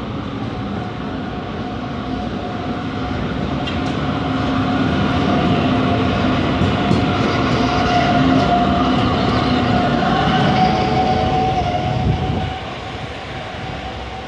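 Zürich tram passing close by on street rails. Its steady whine builds over a few seconds, stays loud with some light clicking, then drops away suddenly near the end as the tram goes by.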